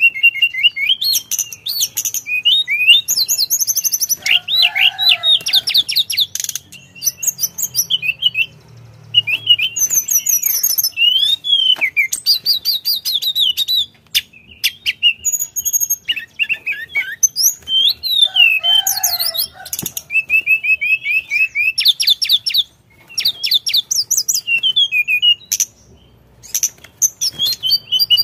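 Male blue flycatcher (tledekan) singing almost without a break: quick, varied phrases of high whistles, rapid trills and chattering notes, with a few short gaps between runs.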